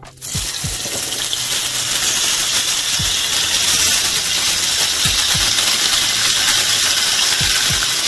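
Sliced onion, peppers and tomatoes hitting a frying pan of hot olive oil and sizzling loudly and steadily, with a few soft low thumps as handfuls drop in. The sizzle stops suddenly at the end.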